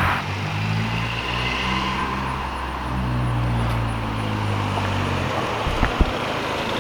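Turbocharged Mazda Protege5 four-cylinder running steadily at low revs through a straight-pipe turbo exhaust. Two short sharp knocks sound near the end.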